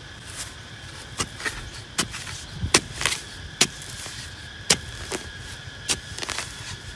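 A hand digging tool chopping into dry, packed soil at a hole, about a dozen sharp, irregular strikes spaced roughly half a second to a second apart.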